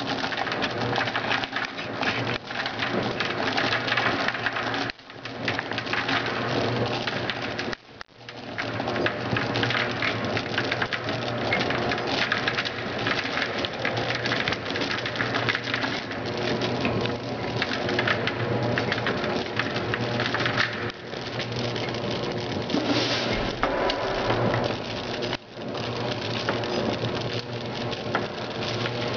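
Industrial feeder running with a hopper of small gum pieces, a dense steady clatter like rain as the pieces rattle against the stainless-steel hopper and feed mechanism, over a steady low machine hum. The clatter dips briefly a few times.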